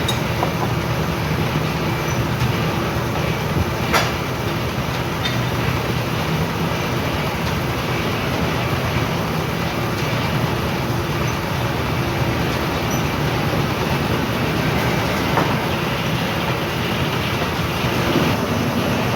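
Steam-powered sawmill running: a Case steam engine driving the mill with a steady mechanical noise. A sharp knock about four seconds in, and a smaller one near fifteen seconds.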